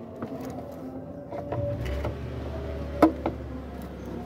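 Plastic air-cleaner housing and intake duct being handled and pressed into place: scattered light knocks and rustles, with one sharp click about three seconds in. A low steady hum runs under it from about two seconds in.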